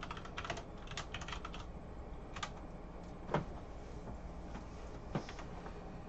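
Typing on a computer keyboard: a quick run of key presses in the first second and a half, then three separate single taps, the middle one the loudest.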